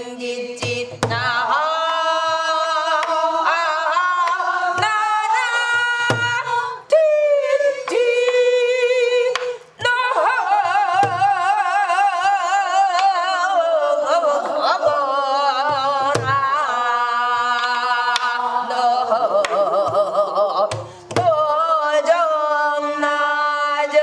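A woman singing Korean gueum, wordless vocables, in long held notes with a wide wavering vibrato. Soft low strokes on a buk barrel drum come every few seconds.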